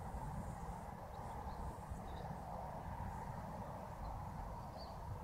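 Steady outdoor background noise with a low, uneven rumble, and a few faint bird chirps.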